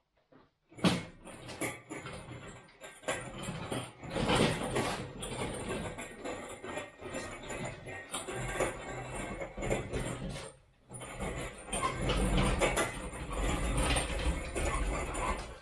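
Irregular clanking and scraping of metal parts being handled, with frequent sharp knocks and a short pause about three-quarters of the way through.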